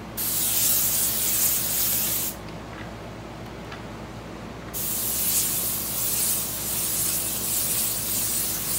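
Airbrush spraying paint: a hissing jet of air that runs for about two seconds, stops for about two and a half, then starts again and carries on.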